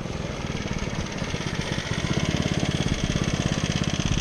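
Coleman off-road go-kart's small single-cylinder petrol engine running under throttle, growing steadily louder as the kart drives closer.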